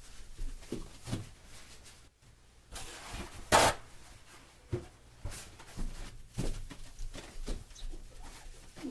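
Paper towel wiping a glass mirror, giving short, irregular squeaks of towel rubbing on glass. There is a brief, louder hiss about three and a half seconds in.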